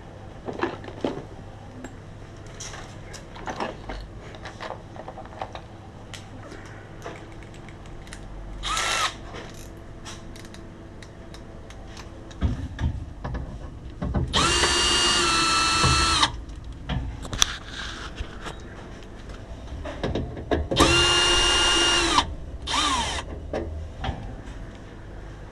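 Handheld power drill running in short bursts: a brief spin-up about nine seconds in, then two longer runs of about two seconds each, its whine stepping in pitch. Clicks and knocks of tool handling in between.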